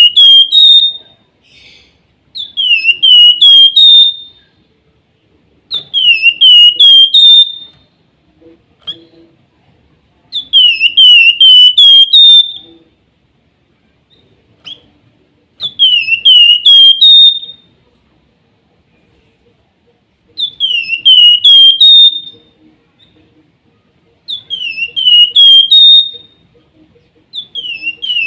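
Spotted crocias (the 'flamboyan' or wergan jawa) singing its 'nyiul' song: a loud, high whistled phrase of four to six quick notes that dip and then rise, repeated about every four seconds.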